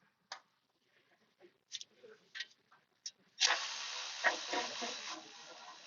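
Hand tools working on exhaust header bolts: a few faint metallic clicks, then about halfway through a couple of seconds of soft rasping and clicking as a bolt is worked loose.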